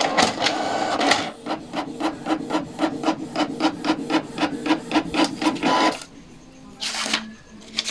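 Canon PIXMA MG2440 inkjet printer printing a page. The paper is pulled in, then the print-head carriage shuttles back and forth in quick regular strokes, about five a second. A short whir near the end is the page being fed out.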